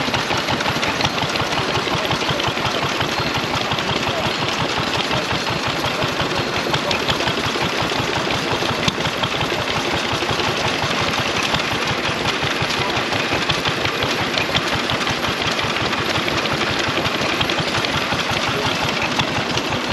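An engine running steadily at idle, with a fast, even beat of firing pulses.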